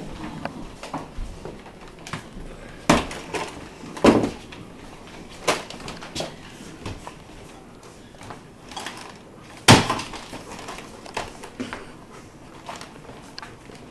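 A handful of sharp knocks and thuds from objects being handled and bumped, with softer rustling and handling noise in between; the loudest knock comes near the end.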